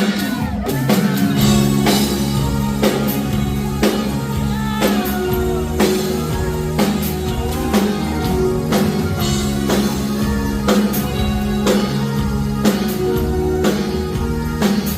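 Live rock band playing a 1980s new-wave song: a steady drum kit beat with guitar over sustained bass notes, with little or no singing.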